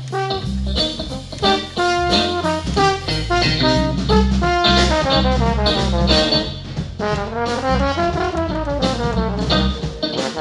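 Brass band music: trumpets and trombones playing a melody over a steady low beat.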